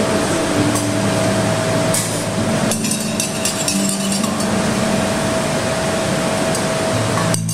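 A metal spoon clinking against a stainless steel cup while coffee is stirred, a cluster of light clinks about three seconds in. Under it runs a steady hum of held low tones that change pitch every second or two.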